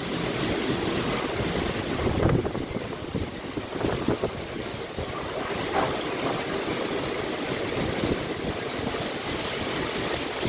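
Heavy rain and gusting wind in a storm: a steady rush of noise that swells a little about two seconds in.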